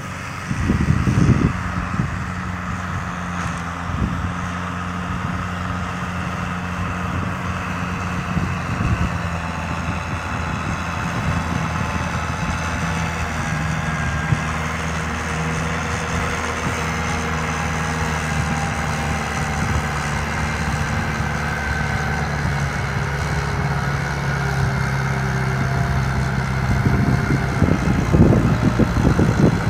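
Kubota M6040 SU tractor's diesel engine running steadily under work, growing louder near the end.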